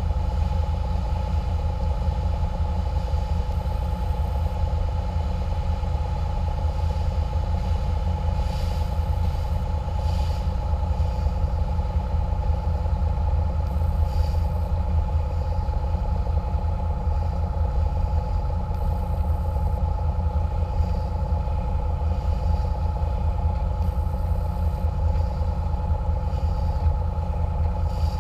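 Catamaran water bus's engines running steadily under way: a constant deep drone with a steady higher tone on top.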